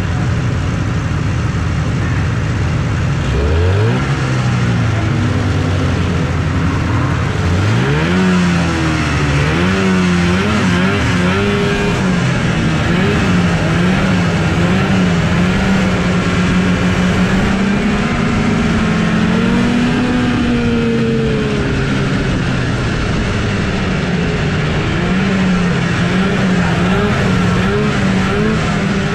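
Vintage TX340 snowmobile's two-stroke engine running, revved up twice in the first several seconds with a rising pitch, then held at an uneven, wavering speed. Other snowmobile engines run alongside it.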